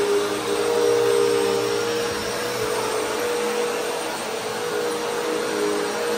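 Bagless upright vacuum cleaner running on carpet as it is pushed along: a steady motor hum over airflow hiss, the hum shifting slightly in pitch about two to three seconds in.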